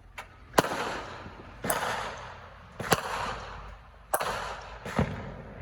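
Fireworks going off around the neighbourhood: five sharp bangs about a second apart, each followed by a long fading echo.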